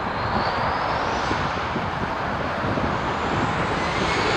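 Landing jet airliner's engine noise, a steady roar with a high whine rising in pitch, mixed with road traffic passing close by; it grows louder near the end.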